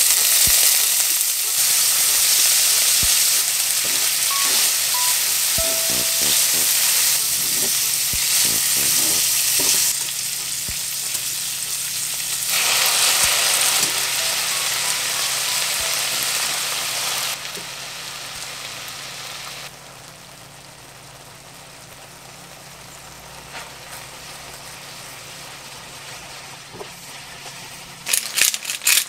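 Frozen shrimp, garlic and dried chili frying in hot oil in a nonstick pan: a loud, steady sizzle with a few clicks of a utensil against the pan. The sizzle drops to a much quieter hiss about two-thirds of the way through. Near the end, a pepper grinder starts in quick rattling strokes.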